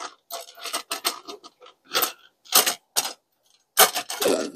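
Plastic parts of a rotating jewelry organizer clicking and knocking as they are fitted together by hand: an irregular string of short, sharp clicks and taps.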